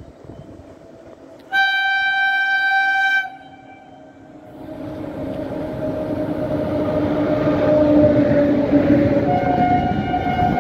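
An electric locomotive sounds one loud horn blast lasting under two seconds. The express then comes up and passes close by, its rumble of wheels on rail growing from about four seconds in with a steady whine under it. A second, softer horn note starts near the end.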